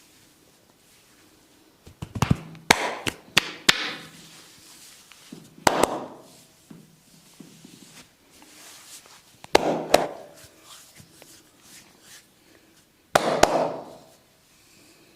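Barber's hands working a head in a massage, making four bursts of sharp cracks and slaps. The first burst, about two seconds in, holds several quick cracks in a row; the others come about six, ten and thirteen seconds in.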